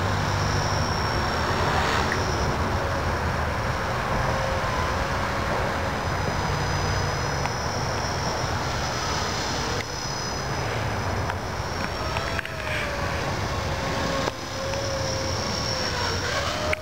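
Modified E-Sky CP3 RC helicopter in flight: its high-speed brushless main motor and rotor give a thin whine that wavers up and down in pitch as the throttle and pitch change, over a steady rush of rotor noise.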